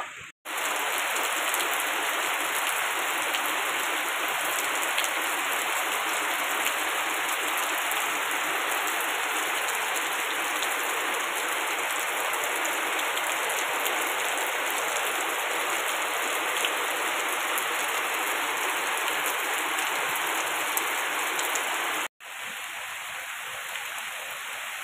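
Heavy tropical rain pouring steadily, a dense even hiss. It cuts out for an instant twice, and after the second break near the end it carries on more softly.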